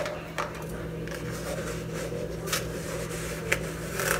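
A plastic measuring cup clicking and tapping against a plastic tub as sugar is scooped out, with a few separate sharp knocks, over a steady low hum.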